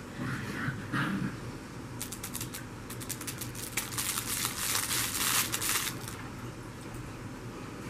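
A beagle puppy chewing and mouthing its toys: a rapid crinkling, clicking crackle that starts about two seconds in and stops about two seconds before the end.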